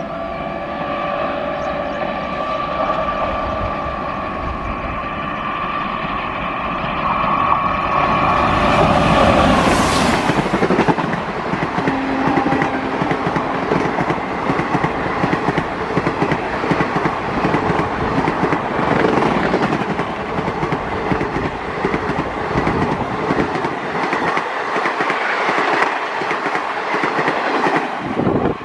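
An Indian Railways electric locomotive approaches with a steady whine. Around eight to ten seconds in it passes in a loud rush, and its blue ICF passenger coaches follow, rattling past at speed with the clickety-clack of wheels over rail joints. The sound cuts off as the last coach goes by.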